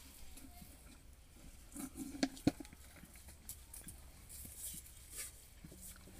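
A calf licking and slurping at a steel bowl, with small scratchy, pattering sounds throughout. There are two sharp knocks a moment apart about two seconds in.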